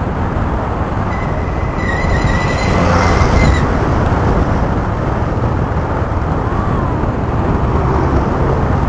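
Wind rush and engine and road noise recorded from a moving motor scooter. About a second in, a steady high-pitched squeal comes in and lasts about two and a half seconds.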